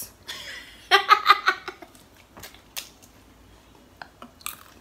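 A woman laughing: a loud burst of giggling about a second in, then quieter breathy laughter with a few faint clicks.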